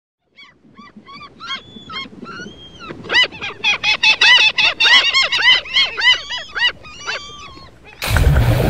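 A flock of seabirds calling: short, arching cries that start sparse, crowd together and grow louder in the middle, then thin out. Near the end a sudden loud plunge into water gives way to a steady rush of water noise.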